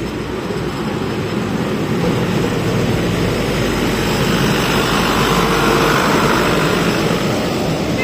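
Small tourist train passing close by on its narrow-gauge track: a steady running noise from its motor and wheels on the rails, growing louder to a peak about six seconds in as the locomotive and passenger cars go past.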